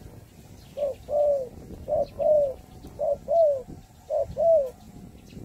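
Dove cooing: four two-part coos about a second apart, each a short note followed by a longer note that rises and falls.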